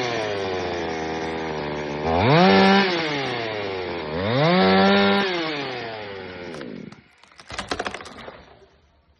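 Chainsaw revving up to full speed and dropping back twice, then stopping about seven seconds in, followed by a short burst of rattling clicks.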